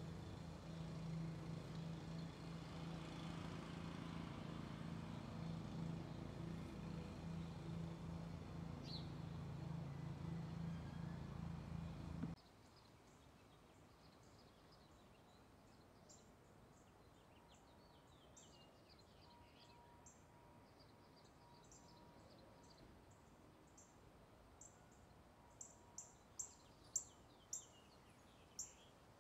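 A steady low hum over outdoor background noise that stops abruptly about twelve seconds in, giving way to a quiet backdrop of birds chirping. Near the end comes a run of short, sharp chirps about twice a second.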